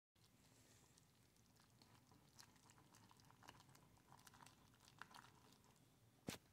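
Faint wet clicking and squelching of a silicone whisk stirring thick cheese soup in a metal pot, with one sharper click near the end.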